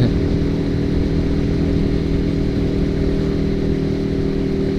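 Honda CB150R motorcycle's single-cylinder engine running at a steady speed through an aftermarket racing silencer, its note holding one pitch.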